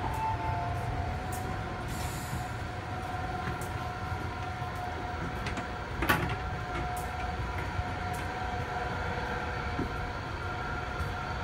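Inside the car of an MTR Disneyland Resort Line train running on the track: a steady rumble under a constant whine of several tones. Light clicks throughout, a short hiss about two seconds in and a sharper knock about six seconds in.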